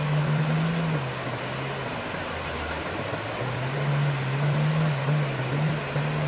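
A wooden longboat's motor running as the boat pushes up through rapids. Its hum fades out a little before two seconds in and comes back about a second and a half later, over the steady rush of the rapids.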